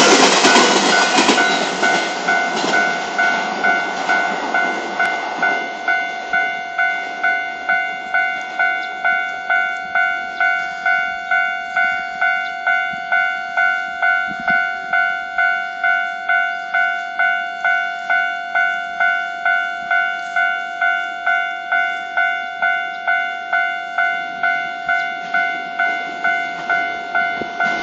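Japanese level-crossing alarm bell ringing in an even kan-kan rhythm, about one and a half strokes a second, all through. An electric multiple-unit train rushes past over the first few seconds and fades, and train noise starts rising again at the very end.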